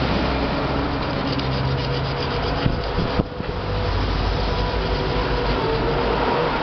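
Coarse iron sandpaper rubbed back and forth by hand over the rim of an aluminium pressure-cooker lid: a steady scratchy scraping, with a short break about halfway. It is smoothing a chewed-up edge so the rubber gasket will seal.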